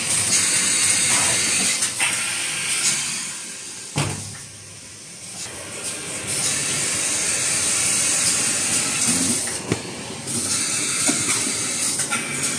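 XY AI 398D toilet-paper bundle packing machine running: a steady hiss with scattered mechanical clicks. A knock about four seconds in is followed by a quieter spell of about two seconds before the hiss returns.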